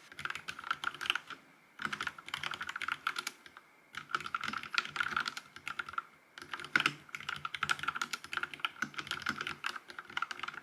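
Typing on a Vissles V84 wireless mechanical keyboard with linear switches: quick runs of key clacks, broken by short pauses about one and a half, four and six seconds in.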